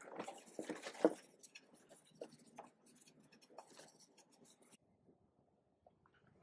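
Cloth rag rubbing finish onto a wooden table leg, with light scuffs, clicks and a knock about a second in from handling the rag and bottle. It stops abruptly about three-quarters of the way through, leaving faint room tone.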